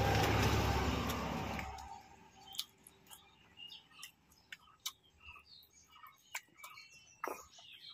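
A loud rushing noise that swells and cuts off abruptly about two seconds in. After it come quiet eating sounds, short clicks from chewing and hand-eating, with faint bird chirps.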